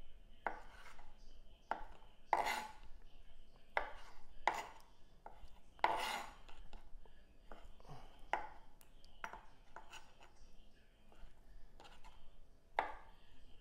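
Kitchen knife chopping cooked chicken sausage on a plastic cutting board: short, irregular knocks of the blade on the board, about one a second.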